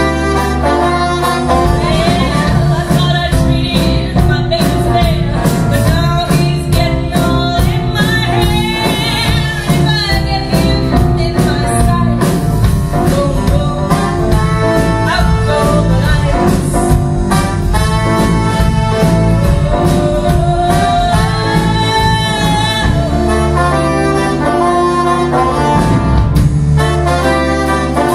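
Live folk band with saxophone and brass playing a jazzy tune, with a woman's voice singing along.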